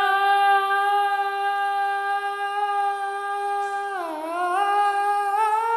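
A woman's voice singing unaccompanied, holding one long note on a vowel, then dipping in pitch about four seconds in and climbing to a higher note near the end.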